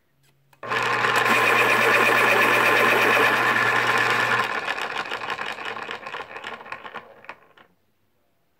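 X-Acto Power3 (model 1700) electric pencil sharpener running as a wooden pencil is pushed in: the motor starts under load and the blade grinds the pencil, steady for about four seconds. It then turns uneven and tails off, stopping about a second before the end.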